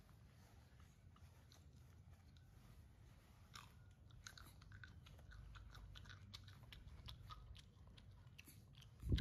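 Faint small clicks and smacks of a baby monkey chewing on its hand, over a low steady rumble, with one loud low thump near the end.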